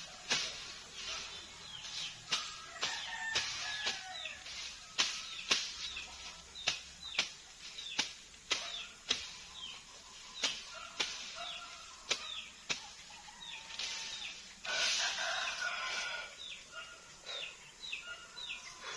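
A bolo machete chopping and slashing through tall cogon grass: sharp swishing cuts, roughly one or two a second at an uneven pace, with the cut grass rustling, and a longer rustle about three-quarters of the way through.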